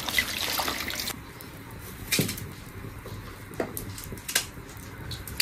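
Water poured from a metal kettle splashing into a bowl, then, about a second in, a few sparse knife scrapes and clicks from potatoes being peeled.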